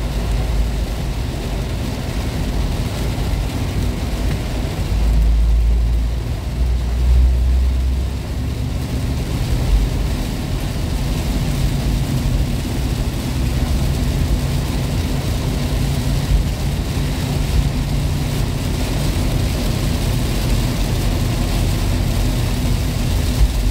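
Toyota Kijang Kapsul LGX heard from inside the cabin while driving through heavy rain: a steady engine rumble with the hiss of tyres on a flooded road and rain on the body. The low rumble swells for a few seconds, and there are a few faint knocks.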